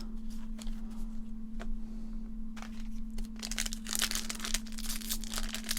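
A few light clicks of cards being handled, then, from about three and a half seconds in, the dense crinkling and tearing of a foil Pokémon booster pack wrapper being opened.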